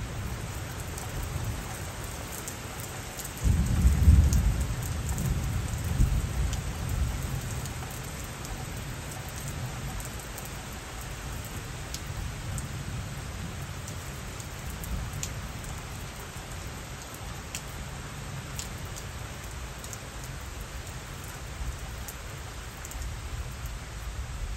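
Steady rain falling. About three and a half seconds in, a loud rumble of thunder breaks in, swells again a couple of seconds later and rolls away over the next few seconds, leaving the rain.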